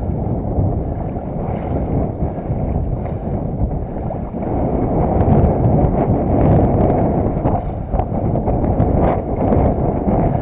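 A person wading through knee-deep marsh water and thick grass: steady sloshing and swishing of legs through water and vegetation, with wind buffeting the microphone.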